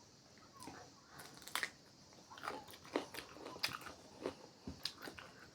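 A person chewing a meal of noodles and cucumber close to the microphone, with irregular crisp crunches and wet mouth clicks a few times a second.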